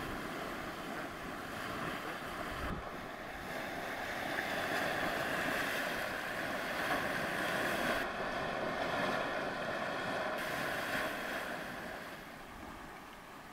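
Boiling muddy hot spring churning and splashing, a steady rushing of water that grows louder for most of its length and fades near the end.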